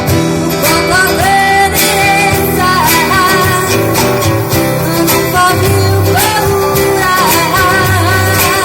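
Small acoustic band playing live: a female lead voice sings long held notes over acoustic guitars, with light drums and percussion keeping a steady beat.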